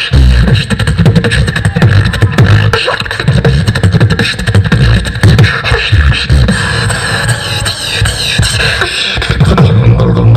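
Human beatboxing through a handheld microphone and PA: a dense run of deep kick-drum hits and sharp snare and click sounds made with the mouth. A wavering high-pitched vocal line rides over the beat through the middle stretch.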